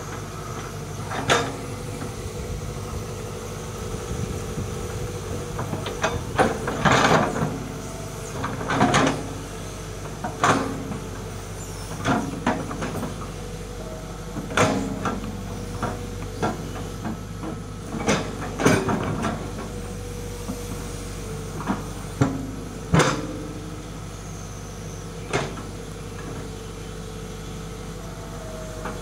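Hitachi hydraulic crawler excavator's diesel engine running steadily under load as it digs soil. Sharp clanks and knocks from the bucket and arm come every second or two, the loudest about seven and nineteen seconds in.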